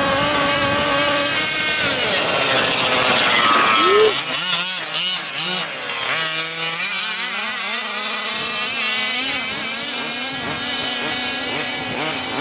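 Small two-stroke engine of a gas-powered 1/5-scale RC buggy running and revving up and down, its pitch rising and falling repeatedly as it is throttled.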